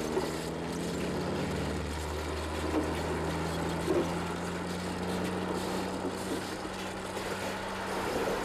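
Low steady drone of a few held tones, typical of a sustained synthesizer chord in a film score, over a faint wash of noise.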